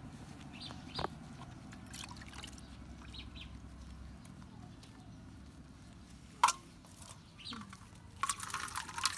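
Flea comb drawn through a dog's wet, soapy coat, with scattered small clicks and one sharp click about six and a half seconds in. Near the end the comb is swished in a metal bowl of water, with splashing and dripping.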